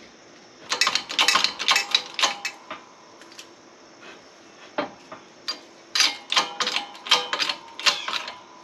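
Steel press adapters and hub parts clinking and clanking as they are fitted and shifted by hand, in two bursts of quick metal clicks, one about a second in and another around six seconds in.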